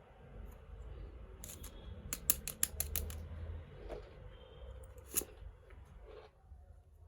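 Small toy pieces and packaging being handled close to the microphone: a quick run of about eight sharp clicks about a second and a half in, then one more loud click a few seconds later, over soft handling rustle.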